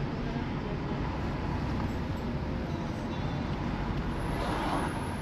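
Steady road and engine noise of a car on the move, with no distinct events.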